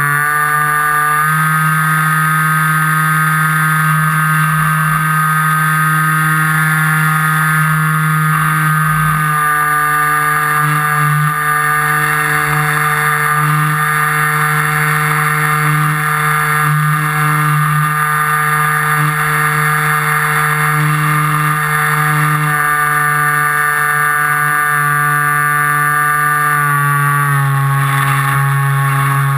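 FPV model aircraft's motor and propeller running steadily in flight, with small changes in pitch about a second in, around nine seconds in and near the end as the throttle shifts.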